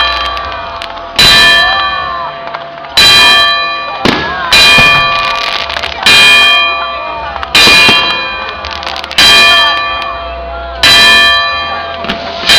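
A large bell struck at an even pace, about one stroke every one and a half seconds, seven strokes in all. Each stroke rings on with several steady tones that fade until the next.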